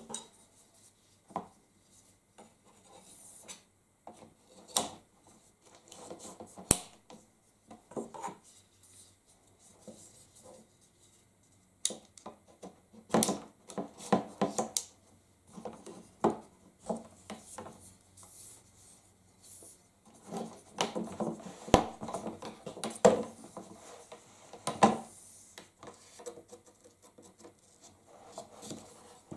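Carbon-fibre shooting-stick poles being handled and fitted together: scattered clicks and knocks from the sections and their joints, with stretches of rubbing and scraping, and the poles now and then tapping on a wooden tabletop.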